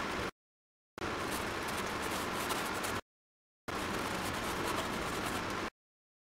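Steady hiss of background noise with a few faint scratchy ticks, cutting to dead silence three times for well under a second each.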